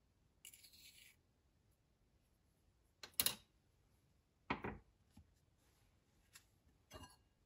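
Small kitchen handling noises: a spoon scraping briefly in a small ceramic cup, then a sharp clink and a duller knock about a second apart as dishes are set down on a wooden table, and a lighter tap near the end.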